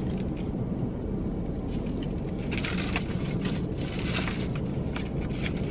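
Foil-lined paper sandwich wrapper crinkling as it is folded and handled, most busily in the middle, over a low steady rumble in the car cabin.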